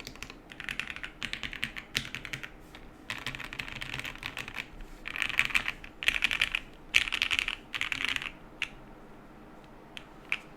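Typing in quick bursts on a Frog TKL custom mechanical keyboard with lubed Gateron Black Ink linear switches on an aluminium plate, with plate and case foam and GMK keycaps. The last few seconds hold only a few single keystrokes.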